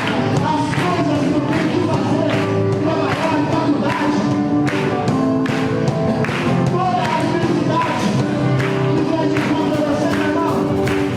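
Live gospel praise band playing an upbeat song, with a steady drum beat and singing over it.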